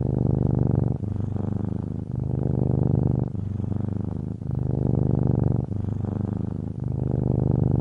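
Domestic cat purring steadily, a low buzzing pulse with a short break about once a second as the cat switches between breathing in and out.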